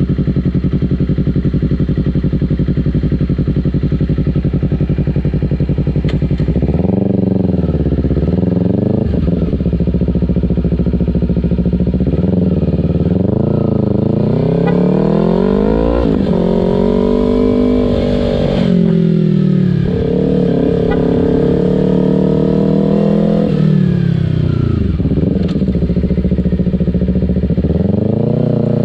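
Yamaha R3 parallel-twin engine breathing through an Akrapovic muffler. It idles steadily for about six seconds, then is revved up and back down again and again.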